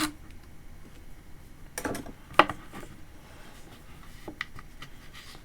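A few scattered clicks and light knocks from small parts of a wire-feed soldering iron being handled and undone during a teardown. The sharpest click comes about two and a half seconds in.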